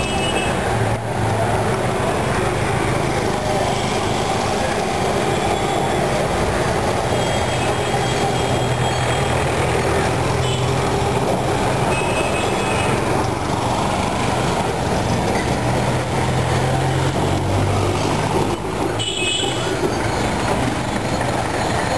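Kolkata electric tram running along street rails and passing close by: a continuous rumble of wheels on track with a steady low hum. A brief high-pitched tone sounds near the end.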